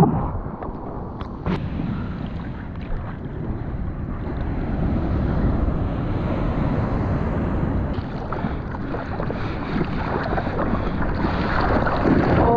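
Shore-break surf churning around a camera at the water's surface: steady rushing whitewash and water sloshing against the housing, with wind buffeting the microphone. A few sharp knocks come in the first couple of seconds, and the rush swells slightly toward the end as a wave builds.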